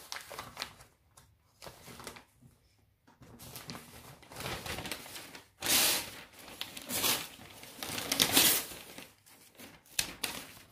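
Sheets of newspaper rustled and crumpled by hand: a few soft rustles at first, then louder crackling bursts of paper in the second half.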